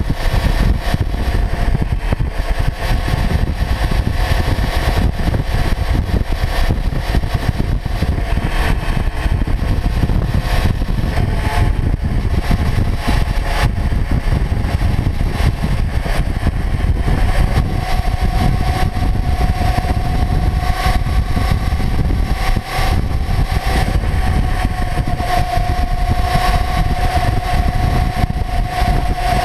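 Kawasaki Ninja 400 parallel-twin engine running steadily as the motorcycle rides at speed, under heavy wind rumble and road noise on the microphone. The engine note rises a little about two-thirds of the way through, then holds.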